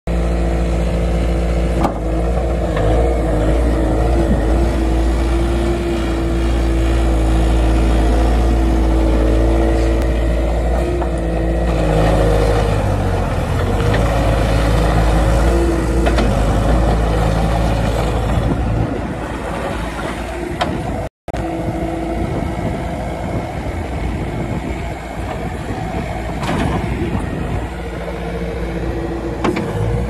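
2007 Bobcat S220 skid steer loader's four-cylinder diesel engine running as the machine drives and turns, then raises its bucket near the end. The engine note shifts about a third of the way in, and the sound cuts out for a split second about two-thirds of the way through.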